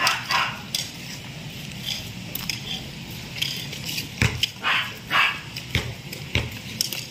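A dog barking in short, sharp barks, a run of them about every half second from about four seconds in.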